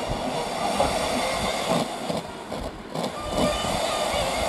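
National FM 45 radio-cassette recorder's radio playing a poorly received broadcast that is buried in static hiss, the reception weak because the set has no antenna. The level dips briefly about two seconds in.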